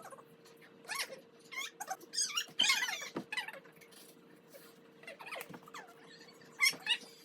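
A young child's high-pitched squeals and squeaky vocal sounds, coming in short bursts, thickest a second or two in and again near the end. A faint steady hum runs underneath.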